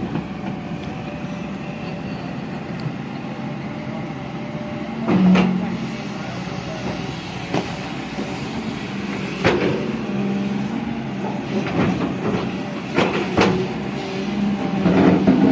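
JCB JS215 tracked excavator's diesel engine running steadily under load, with sharp metallic clanks about five, nine and a half, thirteen and fifteen seconds in.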